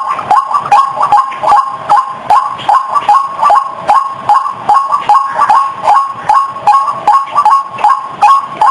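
White-breasted waterhen calls played as a lure recording: an unbroken run of harsh, croaking two-note calls at about two to three a second.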